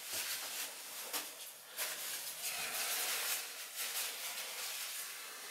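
Paper towel rustling and crinkling as it is handled and scrunched in the hands, in an irregular run of short crackles.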